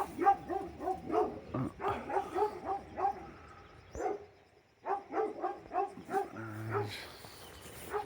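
A dog barking in quick runs of short, high yaps, about four or five a second, breaking off briefly midway.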